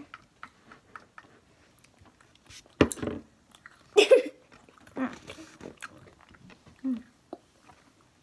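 Someone chewing sour candy dipped in lemon juice, close to the microphone: irregular small crunching and smacking clicks, with a few louder short mouth sounds about three and four seconds in.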